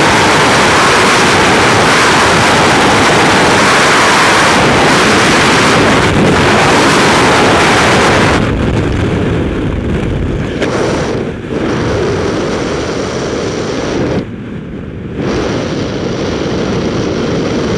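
Freefall wind rushing loudly and steadily over the microphone. About eight and a half seconds in it thins and drops as the descent slows under an opened parachute, leaving a quieter wind rush with a few brief lulls.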